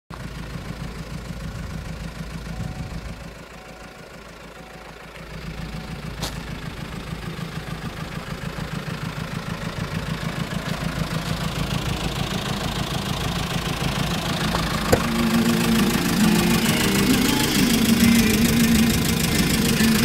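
Kia Bongo III light truck's engine idling with an even throb, getting louder toward the end as the truck is approached closely; a couple of sharp clicks are heard along the way.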